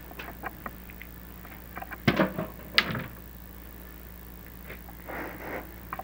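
Scattered small clicks and a few short knocking, scraping rattles from the chimney inspection camera rig as it is fed down the flue. A sharp click comes a little under 3 seconds in and a brief rustle near the end, over a steady low hum.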